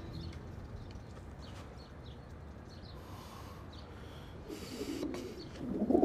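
Pigeon cooing. It is quiet at first, then the cooing starts faintly about four and a half seconds in and grows louder at the end.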